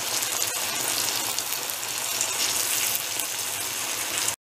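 Hot oil sizzling steadily in a frying pan under a cheese-filled katmer as its second side fries crisp. The sizzle cuts off suddenly just before the end.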